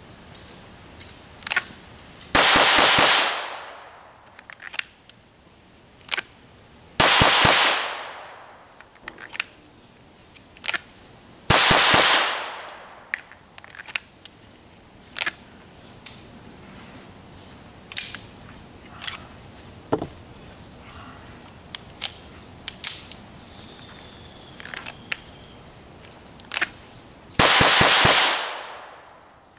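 Gunshots fired in four quick strings of several rapid shots each, spaced seconds apart, every string trailing off in a long echo.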